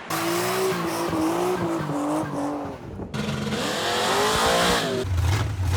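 Car tires squealing over engine noise, in two separate stretches with a sudden cut between them, giving way to a low steady engine rumble near the end.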